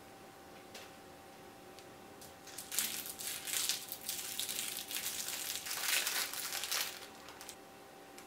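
A clear plastic wrapper crinkling as it is pulled off a cloud-shaped squishy toy. The crinkling starts a couple of seconds in and lasts about four seconds, with a few faint handling ticks before it.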